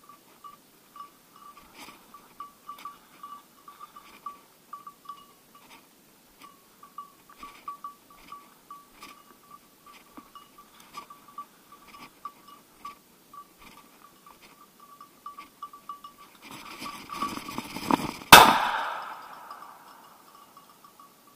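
A hunting dog's beeper collar beeps rapidly and steadily at one high pitch while the English setter holds point. Near the end, brush rustles, then a single shotgun shot is fired at a flushing woodcock.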